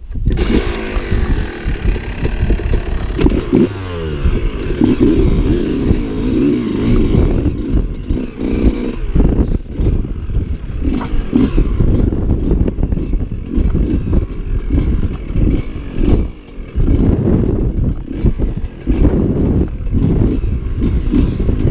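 Dirt bike engine revving up and down while riding over rough moorland, with frequent knocks and rattles from the bike jolting over the ground.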